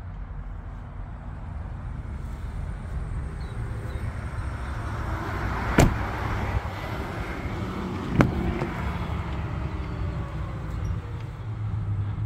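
Doors of a 2021 Chevrolet Tahoe: a sharp door clunk a little under six seconds in and a second latch clunk about two and a half seconds later, over a steady low rumble.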